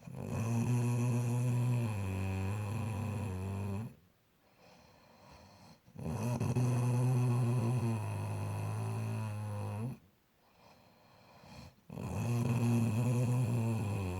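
Snoring in slow, regular breaths: three drawn-out snores of about four seconds each, separated by short quiet pauses. Each snore is a low, buzzing rattle whose pitch drops a step partway through.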